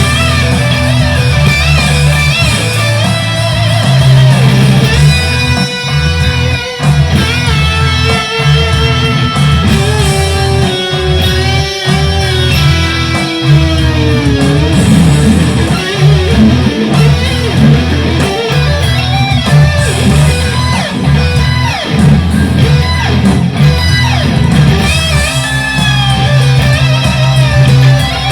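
Fender Stratocaster electric guitar played through a Boss Katana 100 amplifier, improvising melodic lead lines with pitch bends over a sustained low bass part.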